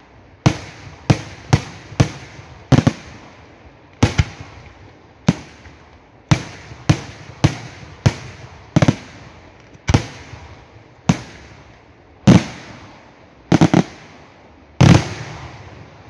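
Aerial firework shells bursting in a fireworks display: an irregular run of about twenty sharp bangs, roughly one a second, each trailing off briefly, with the loudest bangs coming near the end.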